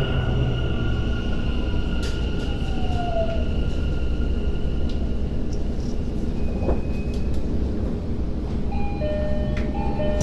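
Tokyo Metro 10000 series electric train braking into a station and coming to a stop, heard from inside the car. The wheels rumble on the rails under the whine of its VVVF traction inverter, and one tone falls steadily in pitch early on. Several short steady tones sound near the end as the train halts.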